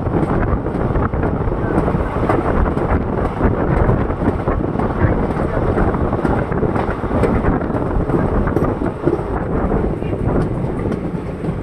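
Passenger train running at speed, heard from an open coach door: steady wind rushing over the microphone mixed with the rumble of the coach on the track.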